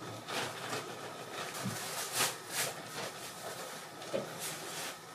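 Bedding and pillows rustling as they are moved and shaken on a bed, in a series of soft swishes.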